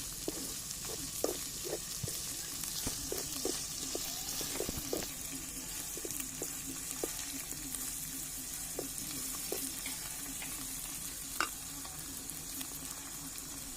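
Tomatoes, green chillies and onions sizzling steadily as they fry in hot oil, stirred with a utensil that taps and scrapes the pan in short clicks, one louder knock near the end.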